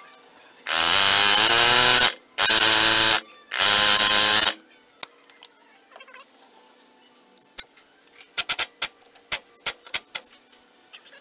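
Pneumatic air hammer run in three loud bursts of about a second or more each, working on a truck's steering knuckle during king pin removal. Near the end it gives a quick series of short sharp taps.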